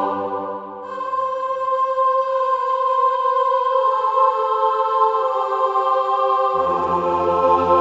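Slow background music of long held chords. The low notes fade out a second or two in and come back near the end.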